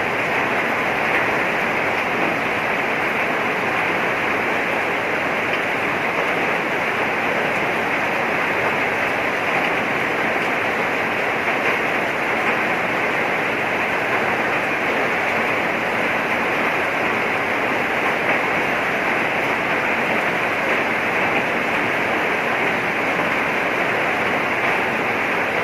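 Heavy rain falling steadily: a dense, even rushing hiss that holds a constant level, with no single drops standing out.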